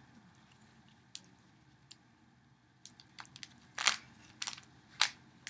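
3x3 Rubik's Cube being turned by hand: a few scattered plastic clicks, then a quick run of clacks in the second half, three of them louder.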